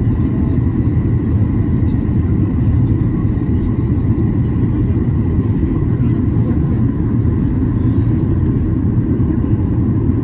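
Steady cabin noise inside a Boeing 737-800 on approach with flaps partly extended: a loud low rumble of airflow and its CFM56-7B engines, with a faint steady whine above it.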